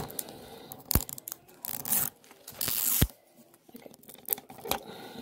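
Plastic seal label being peeled and torn off a 5 Surprise Mini Brands capsule ball: a few short tearing, crinkling bursts, with sharp clicks about one and three seconds in.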